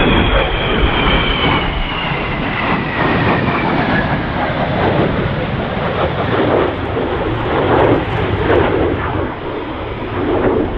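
Jet noise from an F-35B Lightning II and an EAV-8B Harrier II flying past in formation. A high turbine whine falls steadily in pitch over the first few seconds as they pass, over a continuous rushing engine noise that eases slightly toward the end.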